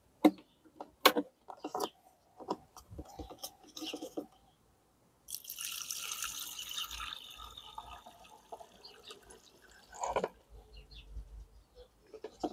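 Diluted car-wash active-foam solution being poured into a container: a few knocks and clicks of handling, then, about five seconds in, a loud splashing pour that tails off, with a knock near the end.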